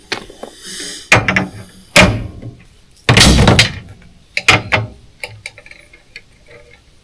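A run of loud knocks and clatters: sharp single hits about a second and two seconds in, a longer rattling clatter about three seconds in, a quick double knock near the five-second mark, then lighter clicks.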